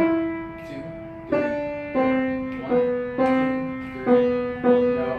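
Upright piano playing a slow line of single notes, about seven in all, each struck and left to ring and fade before the next.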